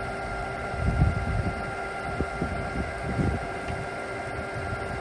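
LeBlond hollow spindle sliding bed gap lathe running with its threading feed engaged, moving the carriage inward. It gives a steady mechanical hum with several high whining tones, and low rumbling swells come about a second in and again about three seconds in.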